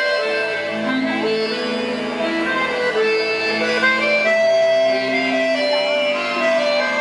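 Festa junina dance music playing, an accordion melody of held notes over a guitar and bass accompaniment.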